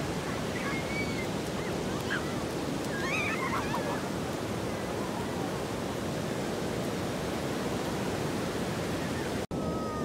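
Sea surf breaking and washing up a pebble-strewn sand beach, a steady rushing noise, with a few faint high calls in the first few seconds. The sound cuts out for an instant near the end.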